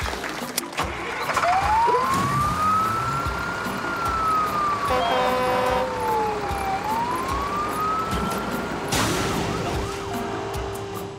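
Cartoon fire truck siren wailing, its pitch rising and falling twice over background music.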